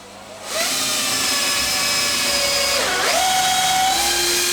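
Power drill running with a steady motor whine that starts about half a second in; its pitch sags and comes back up twice, about three seconds in and again near the end.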